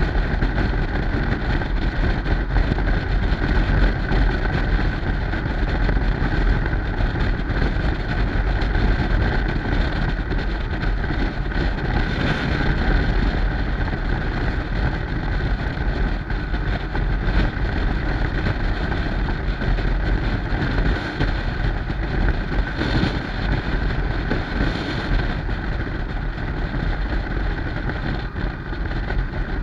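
Steady wind rush buffeting the microphone over the running engine of a Yamaha Stryker motorcycle under way.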